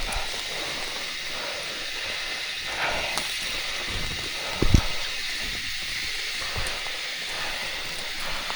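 A steady high hiss of outdoor background noise, with one dull thump a little past halfway.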